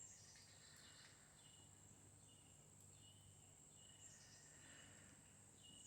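Near silence: faint outdoor ambience with a steady, high insect drone and faint short chirps repeating through it.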